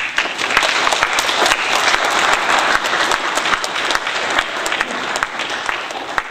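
Audience applauding, a dense, steady clatter of many hands clapping that eases off near the end.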